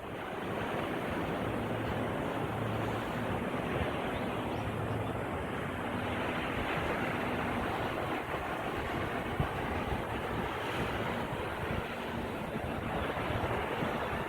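Sea waves washing on the shore under a cold wind buffeting the microphone: a steady, even rush of noise. A faint low hum comes and goes underneath.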